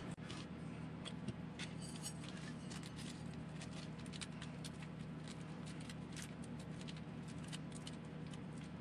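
Scattered light clicks and small rattles of small plastic and metal RC car parts being picked up and handled, over a steady low hum.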